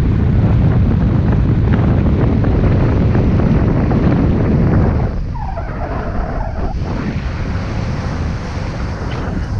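Wind buffeting the camera microphone in paraglider flight, a heavy low rumble. It eases a little about five seconds in.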